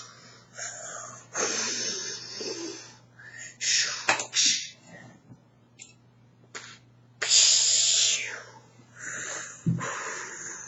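A person's breathy puffs and rushes of air close to the microphone, five or six bursts of up to about a second and a half each, with a couple of short clicks about midway and a faint steady low hum underneath.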